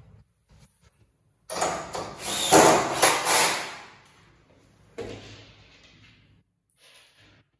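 Particleboard furniture parts of an IKEA Malm bed being handled during assembly: a scraping, sliding sound lasting about two and a half seconds, then a single knock about five seconds in.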